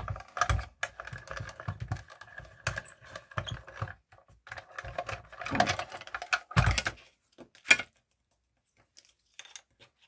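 Small hand-cranked die-cutting machine being cranked, the plate sandwich with a die and card rolling through its rollers with a rhythmic clicking and a faint whine. The cranking pauses briefly about four seconds in and runs again until about seven seconds, followed by a single sharp click.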